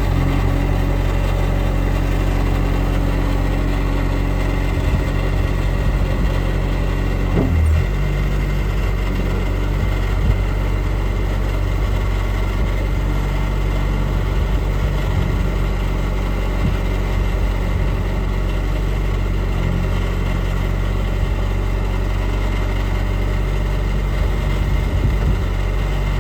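Kubota 2.2-litre diesel engine of a 2001 Bobcat 763 skid-steer loader running steadily at idle, with a brief change in its note about seven and a half seconds in.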